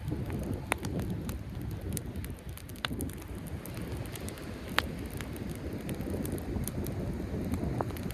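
Driftwood campfire crackling, with a few sharp pops, over the steady low rumble of sea waves.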